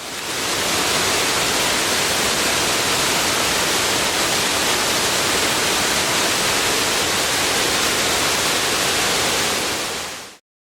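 Waterfall: a steady, dense rush of falling water, fading in over the first second and dying away shortly before the end.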